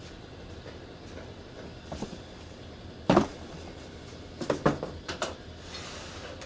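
Objects being handled and set down on a hard surface: a loud knock about three seconds in, a quick run of lighter knocks and clacks a little later, and a short rustle near the end.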